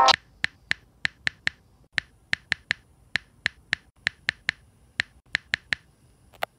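A run of about twenty short, sharp clicks, irregularly spaced at roughly three a second, with the last one near the end.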